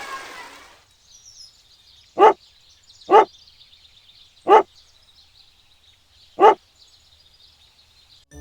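A dog barking four single barks, a second or two apart, over a faint high hiss. A rushing noise fades out in the first second.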